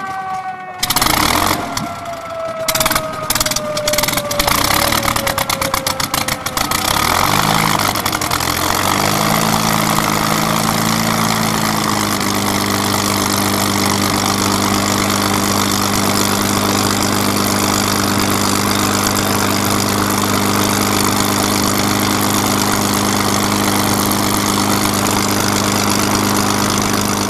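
Spitfire Mk XVI's Packard-built Rolls-Royce Merlin V12 starting up: a whine falls in pitch while the engine fires unevenly for the first seven seconds or so. It then catches and, from about twelve seconds in, settles into a steady idle.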